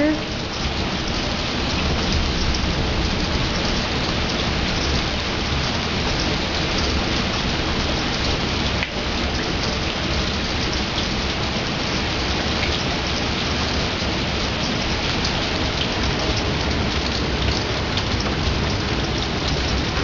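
Heavy rain falling steadily, an even patter of drops on surfaces.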